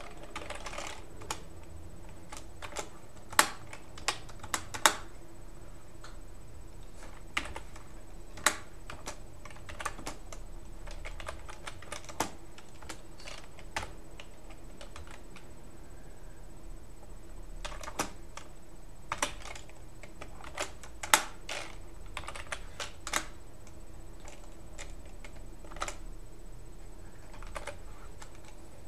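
Typing on a computer keyboard: irregular runs of key clicks, with a few louder single keystrokes and short pauses between bursts, over a faint steady hum.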